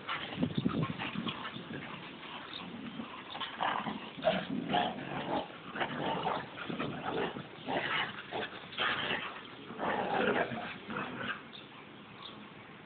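Two dogs play-fighting, barking and making other short vocal noises in irregular bursts. They quieten about a second before the end.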